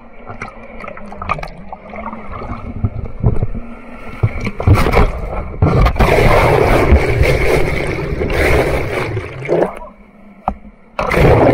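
Whitewater rushing and splashing over a kayak-mounted camera as the kayak tips over in the rapids, with gurgling while the camera is under the water. It builds over the first few seconds, is loudest from about five to nine seconds in, dips briefly, then surges with a loud splash near the end.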